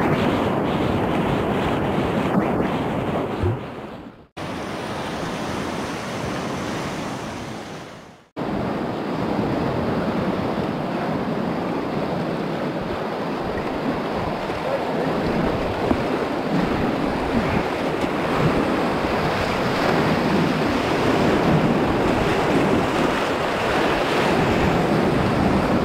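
Whitewater rapids rushing and splashing around a kayak, heard close up from the boat. The sound sags and briefly cuts out twice, about four and eight seconds in.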